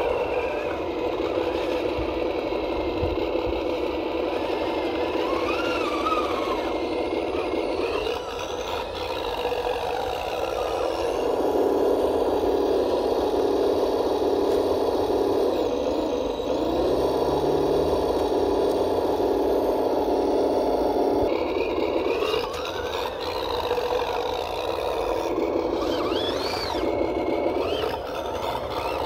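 A CROSS RC KrAZ-260 radio-controlled scale truck's motor and drivetrain whirring steadily as it drives through muddy water. The pitch steps up about eleven seconds in and drops back about ten seconds later as the throttle changes.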